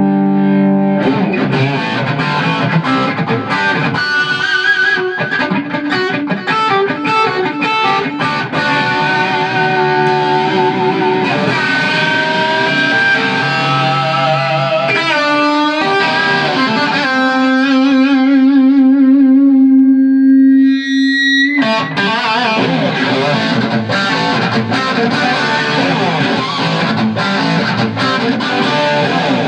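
Electric guitar played loud through a Simms-Watts PA 100 valve head, rebuilt as a guitar amp, into a Malmberg 4x12 cabinet, with a distorted tone: runs of single notes and riffs, then one long held note with a steady wide vibrato about two-thirds through before the playing picks up again.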